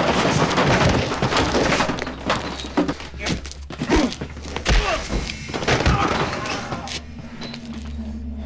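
A scuffle: a run of thuds and knocks from bodies and blows, with grunts, over a low droning score. It dies down about seven seconds in.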